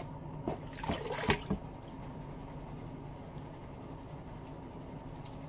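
Water sloshing in a plastic gold pan as paydirt is panned down to black sand over a tub of water. A few splashes come in the first second and a half, then a faint, steady wash of water.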